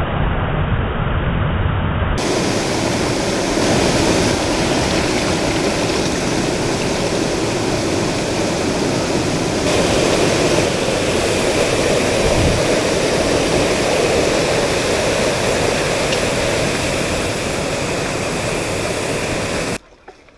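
Small waterfall and stream water rushing steadily, muffled for the first couple of seconds and then clearer. It cuts off abruptly just before the end.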